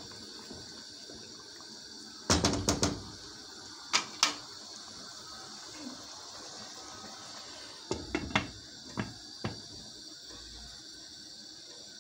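Bulgur and rice pilaf boiling in a wide pan on a gas stove, a steady hiss of bubbling water. Sharp clinks and knocks against the pan come in clusters about two seconds in, twice near four seconds, and several more around eight to nine and a half seconds, as a spoon is tapped and a glass lid is put on.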